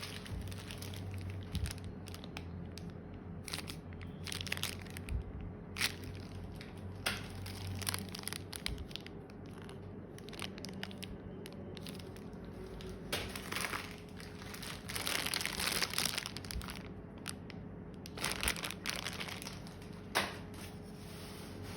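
Packaging being handled close to the microphone: crinkling, crumpling and tearing of wrapping material in irregular bursts, with scattered sharp taps and knocks.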